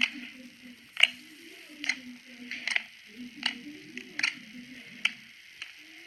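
Slime being pressed and squished, giving sharp clicking pops roughly once a second.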